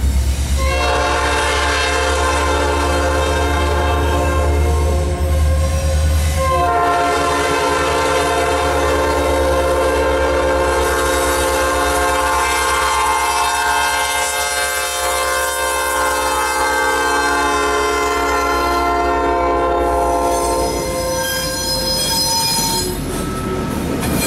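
The lead locomotive's air horn, an EMD SD70 diesel's, sounds for a grade crossing as the train approaches. It gives one blast of about five seconds, a brief break, then one long blast held for about fourteen seconds that stops shortly before the locomotive reaches the crossing.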